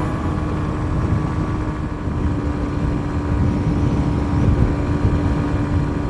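Kawasaki Ninja 125's single-cylinder four-stroke engine holding a steady drone at motorway cruising speed, heard on board under heavy wind rush on the microphone.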